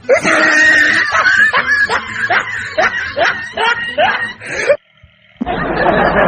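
A person laughing in a rhythmic run of rising 'ha' sounds, about two a second, that breaks off suddenly about five seconds in. After a short silence, a steady rushing noise starts.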